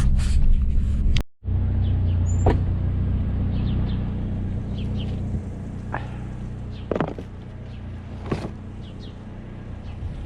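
GMC Sonoma pickup's engine running steadily on the road, a low rumble that cuts out for a moment about a second in and eases down later on, with a few light knocks and clicks.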